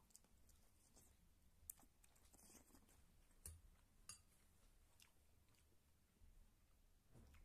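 Very faint chewing of a mouthful of instant noodles, with a few small sharp clicks.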